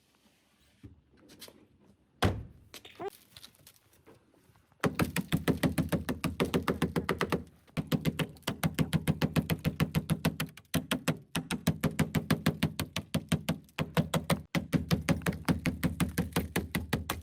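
Rapid, even hammer blows on a car door's sheet-metal panel, about seven a second, in runs of a few seconds with short breaks. A single thump comes about two seconds in.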